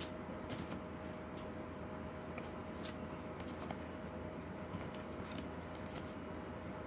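Tarot cards being handled one at a time: light slides and scattered soft clicks of card stock as each card is moved from the front of the deck to the back, over a faint steady hum.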